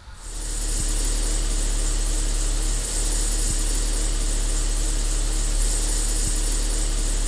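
Saab 9-5 2.0-litre turbo four-cylinder engine idling steadily, with a high-pitched squeak from the serpentine belt area, which the owner puts down to an aged serpentine belt.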